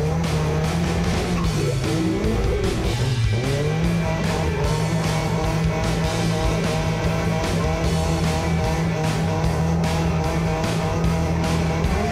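Drift car's engine held at high revs while sliding, its pitch dipping and recovering twice in the first few seconds, then holding steady, with tyres squealing on the pavement.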